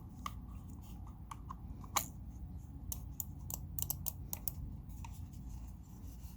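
Small plastic clicks and taps from a wireless mouse being handled as its battery cover is fitted back on, the sharpest click about two seconds in and a quick run of clicks a little after the middle.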